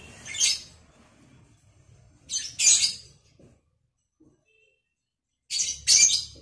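Lovebird giving short, high-pitched, harsh calls: one near the start, a quick pair about two and a half seconds in, and another pair near the end.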